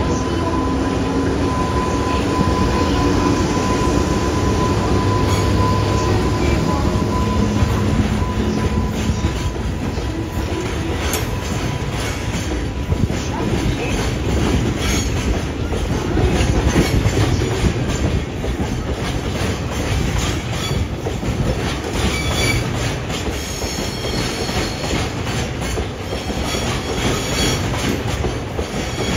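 Freight train of oil tank wagons, behind a twin-unit electric locomotive, rolling past at close range: a steady, loud rumble of wheels on rail, with a steady whine over the first several seconds. High thin wheel squeals and clacks come in the second half.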